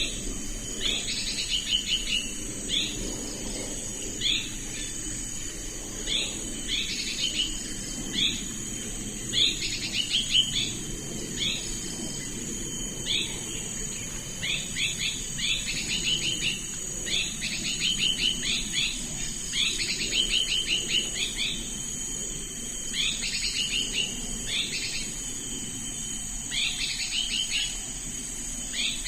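Hairy-backed bulbul (Tricholestes criniger) calling: repeated clusters of short, quick down-slurred notes every second or two. A steady high insect drone runs underneath.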